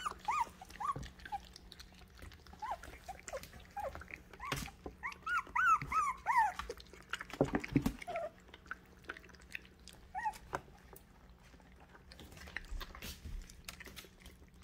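Young puppies whimpering in short, high rising-and-falling whines, with a run of about half a dozen about five to six seconds in. Small clicks and smacks of the puppies eating kibble from a stainless-steel bowl run through it, with a low bump about halfway through.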